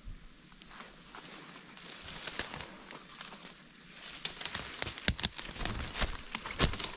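Footsteps pushing through dry fallen leaves and underbrush, with leaves rustling and twigs crackling, the sharp crackles coming thick and loudest over the last three seconds.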